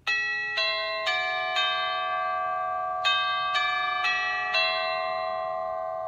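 Toucan doorbell chime playing one of its six selectable tunes: a bell-like melody of eight notes, four struck about half a second apart, a pause of about a second, then four more, each note left ringing.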